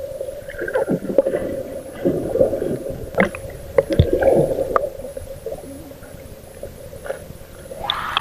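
A swimmer moving through water, heard with the microphone underwater: muffled gurgling and bubbling over a steady low hum, with scattered knocks. Just before the end the microphone comes up out of the water and the sound turns brighter.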